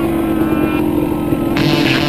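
Two-stroke dirt bike engine running at a steady, low rev. Music with electric guitar comes in about one and a half seconds in.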